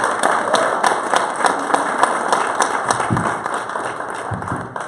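Church congregation applauding, dense clapping that fades out near the end.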